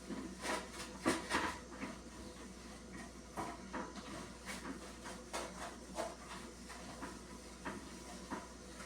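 Scattered light knocks and clatter of things being handled while a refrigerator is cleaned, a cluster of the loudest ones about a second in, over a steady low hum.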